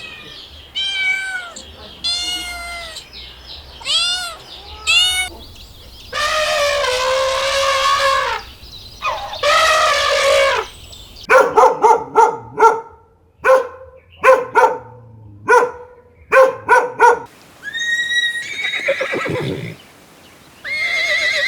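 A series of animal calls: several short arching meows at first, then two long drawn-out calls, a quick run of short sharp calls, and another rising call near the end.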